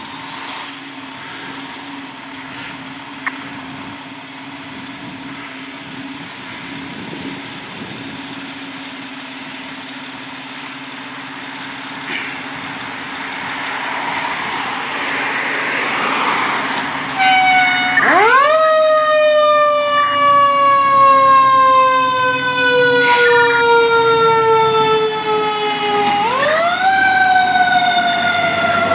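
Fire engine's diesel engine running steadily, building as the truck pulls out. About 18 seconds in, its siren sounds loudly: the pitch climbs sharply, falls slowly over about eight seconds, then climbs again near the end.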